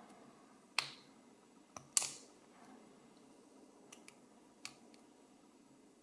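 Small, sharp metal clicks, about six of them with the loudest about two seconds in, as the retaining clips are worked off a euro lock cylinder with a tool.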